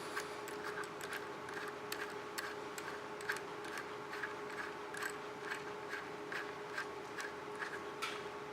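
Light metallic clicks, about two to three a second, as a quick connect is screwed by hand onto a hand rivet nut installation tool. A faint steady hum runs underneath.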